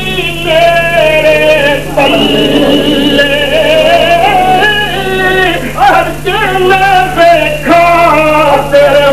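A man's voice singing a verse in long held notes with melodic turns and short breaths between phrases, over a steady low hum.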